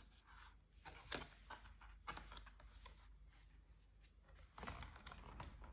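Faint clicks and taps of fingers handling a cardboard board book and its lift-up flap, then a soft rustle near the end as a stiff board page is turned.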